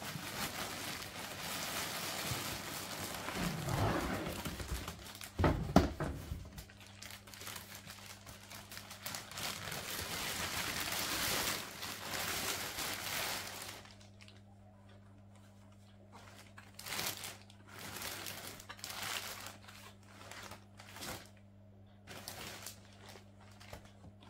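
Plastic packaging bag crinkling and rustling as an aquarium filter canister is unwrapped. The rustling runs on without a break for the first half, with a couple of heavy bumps about four and five and a half seconds in, then comes in short separate bursts.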